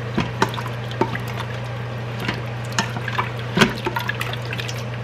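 A spatula stirring beef broth around the stainless steel inner pot of an Instant Pot: irregular clicks and scrapes of the spatula on the pot over a wet sloshing of liquid, with a steady low hum underneath.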